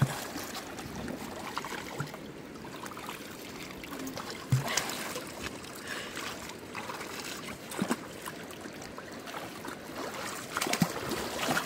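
River water sloshing and splashing around people ducking under and surfacing, with a few sharper splashes about four and a half, eight and eleven seconds in.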